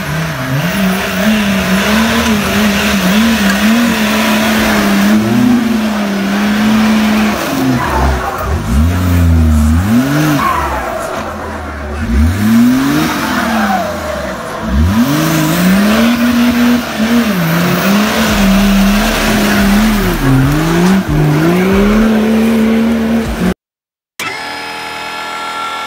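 Lifted Jeep Wrangler's engine revving up and down over and over as it crawls over rough trail ground, its pitch rising and falling every second or two. It cuts off suddenly near the end.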